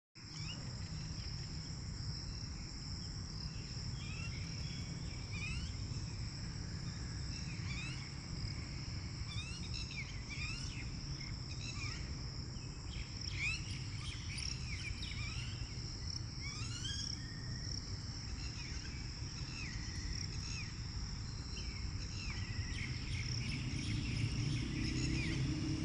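Outdoor nature ambience: a steady high-pitched insect drone with many short, quick bird chirps over a low rumble. A lower, steadier sound joins in near the end.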